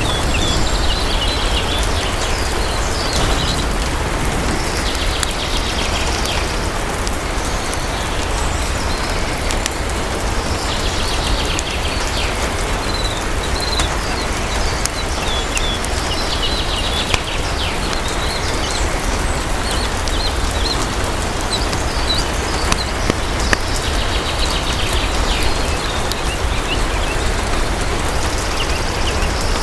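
Steady heavy rain with a deep low rumble underneath and sparse sharp crackles of a fireplace. Clusters of short, high bird chirps recur every few seconds.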